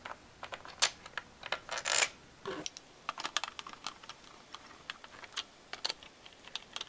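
Screwdriver driving small screws into a plastic floppy-drive case: a run of quick, irregular clicks and ticks of metal tip, screw and plastic under the hands.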